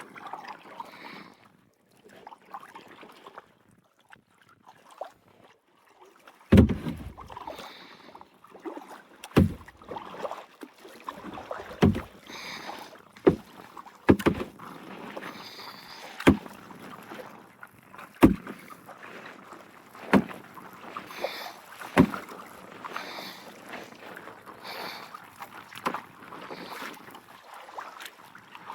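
Kayak paddling: the paddle dipping and splashing through the water, with a sharp knock about every two seconds from roughly six seconds in, and quieter, irregular water sounds before that.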